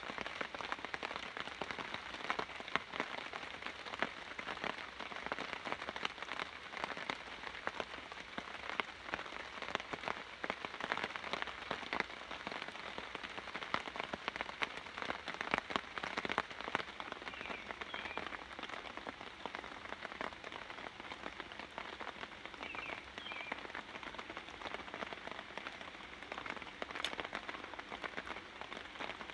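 Steady rain falling, a dense, even patter of raindrops.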